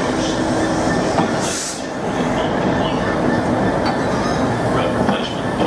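Freightliner Class 66 diesel locomotive passing, its two-stroke V12 engine running steadily with wheel and rail noise, and a brief hiss about a second and a half in.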